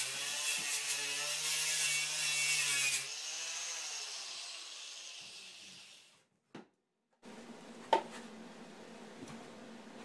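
Angle grinder working against steel, taking paint off the back of a welded test piece. About three seconds in it comes off the metal and the motor winds down over a few seconds; a single sharp knock follows about eight seconds in.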